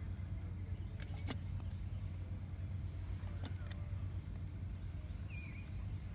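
Faint metallic clicks from a golf-green cup cutter being worked, a couple about a second in and another past three seconds, over a steady low rumble. A bird chirps briefly near the end.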